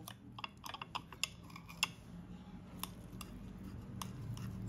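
Kitchen knife slicing a rolled omelette on a ceramic plate: faint, irregular clicks and taps as the blade cuts through and meets the plate.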